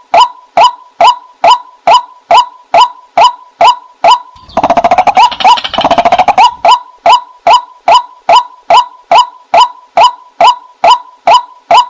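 White-breasted waterhen calling, played back as a decoy call: a loud, monotonous 'kwak' repeated about twice a second. About four seconds in, the calls break for about two seconds into a faster, rougher run of lower notes, then the steady rhythm resumes.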